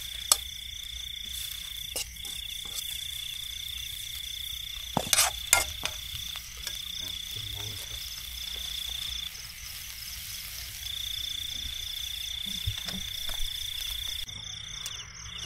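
Night-time insect chorus: a steady high trill that breaks off a few times, with a faster pulsing call above it. A few sharp clicks and clatters sound over it, the loudest cluster about five seconds in.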